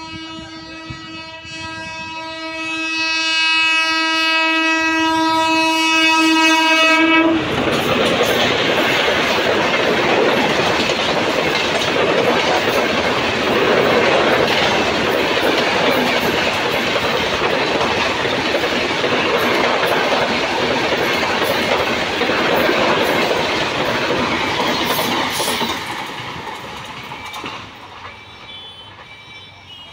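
Rajdhani Express electric locomotive sounding one long, steady horn blast as it approaches; the horn cuts off about 7 seconds in. The train then passes close by at speed, its LHB coaches rumbling and wheels clattering over the rail joints, and the noise fades near the end as the last coach goes by.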